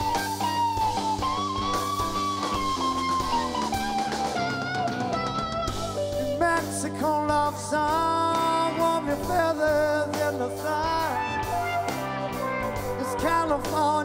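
Live rock band playing an instrumental break: a lead electric guitar solo with notes that bend and slide, over bass and drums.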